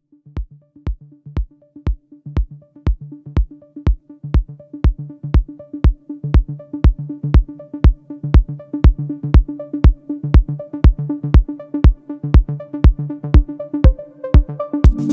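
Electronic background music: a steady kick drum about two beats a second under held synth bass notes. It builds in loudness, and more instruments come in right at the end.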